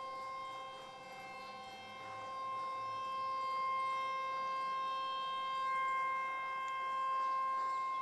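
Distant Federal Signal outdoor warning sirens, 2001s and Eclipse 8s, sounding a steady tone in the monthly siren test. Several pitches sound together, slowly swelling and fading in loudness.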